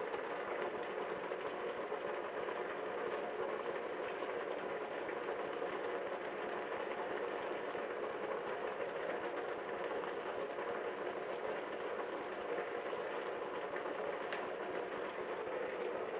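Steady, unchanging machine-like background hum and hiss, with a faint click about fourteen seconds in.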